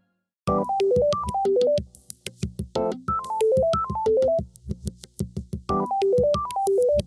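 Samsung Galaxy phone ringtone (One UI 5.1) starting about half a second in: a synthesized keyboard melody of quick notes that step down and climb back up, over a pulsing low beat, the phrase looping every two to three seconds.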